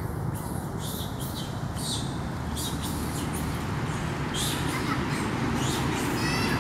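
Short high-pitched chirping calls repeating several times a second over a steady low rumble, thickest near the end.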